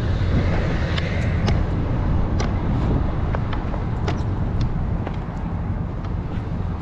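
Tow truck driving: a steady low engine and road rumble, with a few light clicks and rattles scattered through it.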